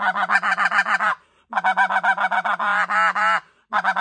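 NoCo White Out snow goose call blown in fast runs of short, arching notes, mimicking the chatter of feeding snow geese. The hand cupped over the call opens and closes to shift the pitch and sound like more birds. There are three runs, with short breaks about a second in and near the end.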